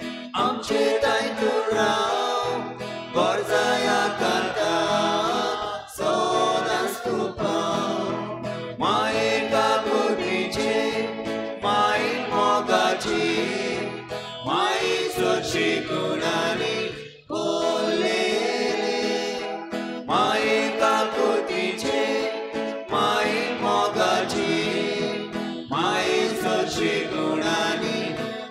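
A hymn sung by voices with guitar accompaniment.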